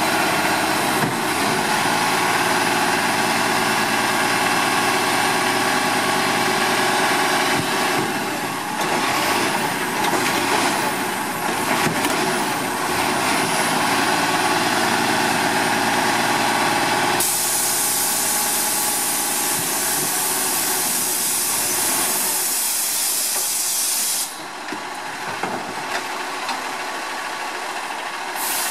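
Diesel engine of an Autocar WXLL garbage truck running at raised revs to drive the Labrie Automizer's hydraulic arm as a cart is dumped, with a few seconds of knocks and rattles about eight seconds in. About 17 seconds in, a loud steady hiss starts suddenly and cuts off about seven seconds later, leaving the engine running more quietly.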